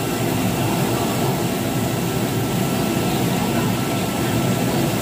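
Steady rushing air of the extraction fan drawing smoke up the stainless steel duct above a table-top barbecue grill, with a faint steady whine running under it.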